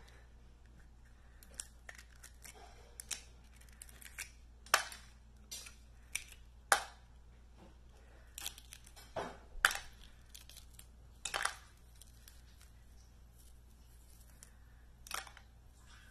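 Balut duck egg's shell being cracked and picked apart by hand: irregular sharp crackles and clicks, spaced a second or so apart, loudest in the middle stretch.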